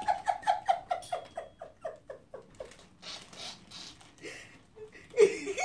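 A woman laughing: a long run of quick, high-pitched laughs, about six a second, that fade out over the first three seconds. Then a breath, and louder laughter or voice near the end.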